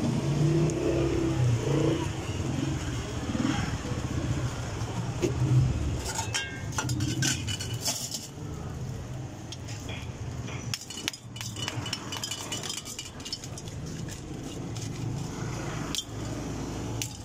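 Metal spoon clinking and scraping against embossed steel bowls while a sharbat is mixed, in bursts of sharp clinks from about six seconds in. Underneath runs a steady rumble of street traffic with background voices.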